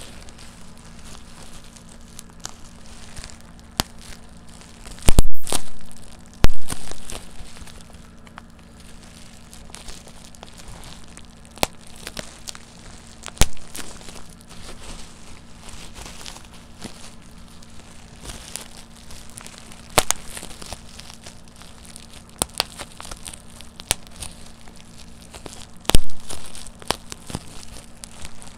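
Bubble wrap being popped by hand: plastic crinkling as it is twisted, broken by sharp single pops at irregular intervals. The loudest pops come about five and six and a half seconds in, and again near the end.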